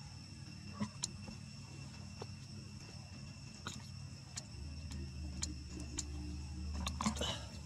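Faint outdoor ambience: a steady high insect drone, with scattered small ticks and taps, a cluster of them about seven seconds in. A low hum runs from about four and a half to seven seconds in.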